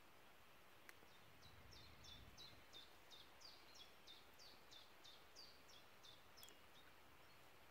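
Faint song of a small bird: a steady series of about seventeen short, high, down-slurred notes, about three a second, with a single click about a second in.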